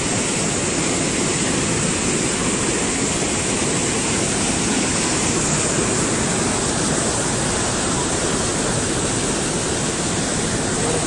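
A river in flood after heavy rain rushing past below a bridge: a steady, loud noise of fast-moving water that does not change.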